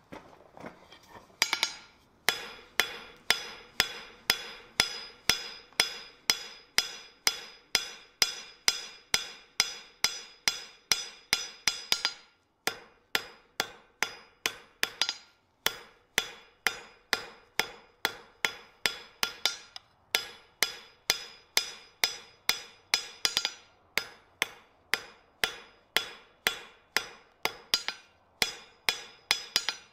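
Hand hammer striking a red-hot steel bar on a steel anvil, about two to three ringing blows a second, as the bar's end is drawn out to a taper. The blows pause briefly a few times.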